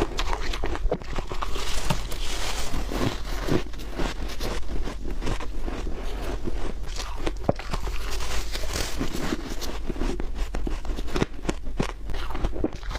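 Biting and chewing soft, squeaky freezer frost: a dense, continuous run of crunching and crackling with many sharp crisp clicks.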